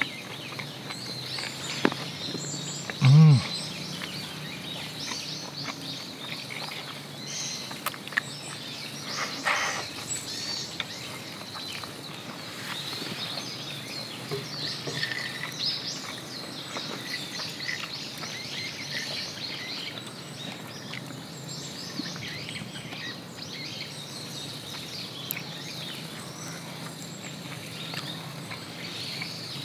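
Outdoor ambience with small birds chirping on and off and a steady low background noise. About three seconds in comes a short, low hummed 'mm' from a man eating, and a few small clicks and taps follow later.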